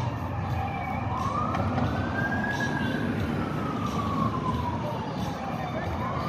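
Fire engine siren, on a 2011 Ferrara Ember pumper, wailing in slow sweeps. The pitch falls slowly, rises again about a second in, holds at the top, and sinks slowly before climbing once more near the end. Underneath is a steady low rumble of traffic and engine.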